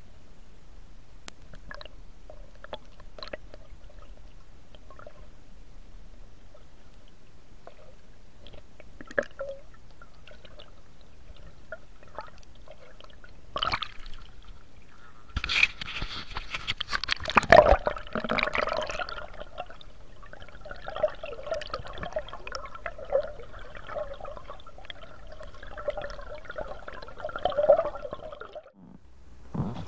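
Water gurgling and bubbling, heard with the microphone under water: faint clicks and gurgles at first, then about halfway through a louder rush of sloshing and bubbling that carries on as a wavering gurgle.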